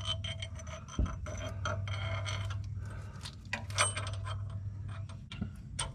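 Irregular metallic clicks, clinks and scrapes as a keyed washer is worked over a VW Beetle swing axle and wiggled into place at the transaxle. A steady low hum runs underneath.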